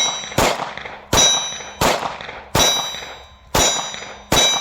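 Glock 43 9mm pistol firing rapid single shots, about one every three-quarters of a second, six in all. Most shots are followed by a short metallic ring.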